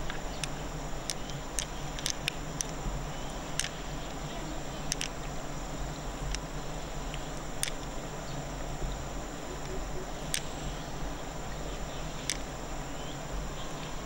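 Steady insect chirring, with about a dozen sharp clicks at irregular intervals.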